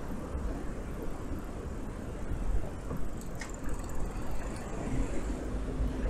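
Road traffic heard while riding a bicycle through city streets: a steady low rumble of passing cars, with a brief steady hum coming in near the end.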